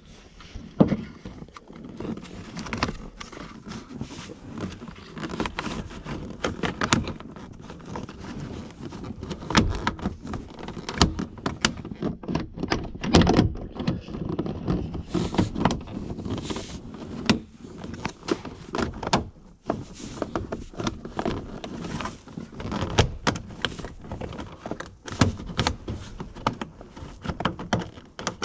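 A plastic lower steering column cover on a Chevy Suburban being handled and fitted back into place, with irregular clicks, knocks and rattles of plastic trim throughout.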